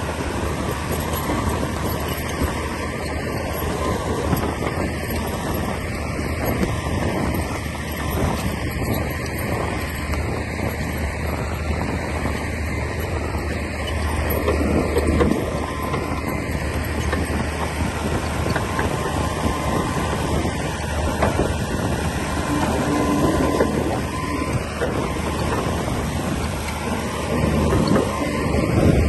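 Komatsu D60P bulldozer's diesel engine running steadily at work, with a constant rattle of machinery over it; the engine swells a little louder twice, about halfway and near the end.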